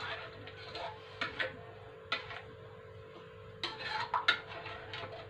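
Metal ladle clinking and scraping against a wok as a thick spice paste is stirred, with a few scattered clinks and a quicker run of them a little before the end. A steady hum runs underneath.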